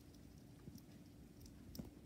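Faint nibbling of a dwarf hamster eating sunflower seeds: small scattered crunches and clicks, two of them sharper, one about a second in and one near the end.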